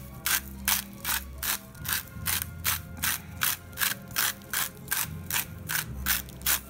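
Even, rapid clicking, about three sharp clicks a second, over a steady low hum.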